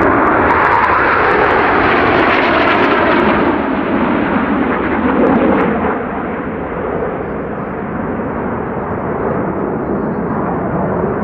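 Jet noise from a formation of Northrop F-5E Tiger II fighters, each with two J85 turbojets, flying overhead. A dense, steady jet sound that slowly drops in pitch and gets quieter about six seconds in.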